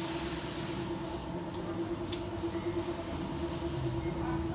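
Body-shop background noise: a steady machine hum under intermittent bursts of hissing that start and stop several times.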